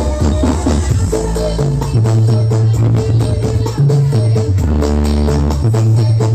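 Loud music with heavy, stepping bass notes and quick percussion, played through a Blizzard Audio sound system.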